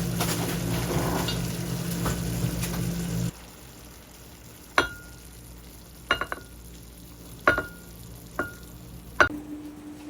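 Food frying in a pan with a steady sizzle and a low hum, cut off abruptly about three seconds in. Then about five sharp clinks of a utensil against a dish follow, each ringing briefly.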